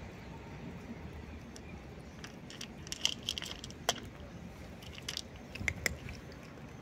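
A cat eating wet food and kibble from a plate: sharp, short chewing clicks that come in a cluster about three seconds in and again around five to six seconds in, over a low steady background rumble.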